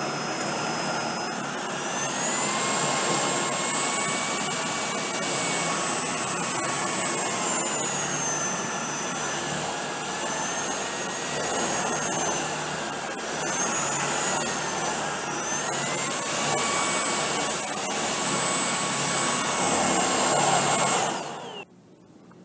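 Tineco PURE ONE S11 cordless vacuum running with its mini motorized brush tool on carpet, a steady motor rush with a whine. The whine steps up in pitch about two seconds in and dips and rises a few times as the tool works. The motor shuts off shortly before the end.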